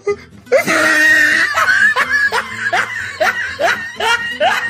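Laughter in a run of short, rising 'ha' pulses, about three a second, starting about half a second in.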